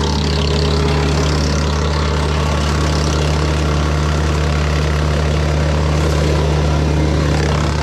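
Kubota BX compact tractor's three-cylinder diesel running at a steady speed, driving a PTO wood chipper, with a constant drone under an even rushing noise.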